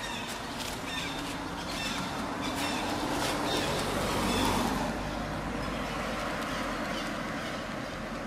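Outdoor ambience: a steady background hiss with short high chirps and a few clicks, which swells in loudness about four seconds in and then eases.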